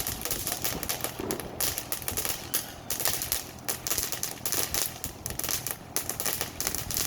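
Firework crackling: a dense, rapid run of small pops and crackles, with brief lulls about one and a half, two and a half and six seconds in.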